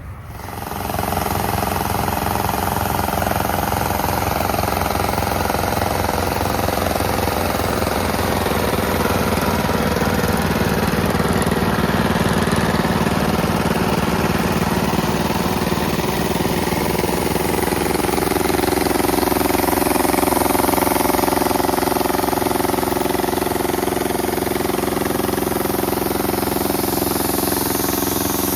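A small engine starts up and runs steadily with a fast, even firing beat, speeding up a little about two-thirds of the way through and then settling back.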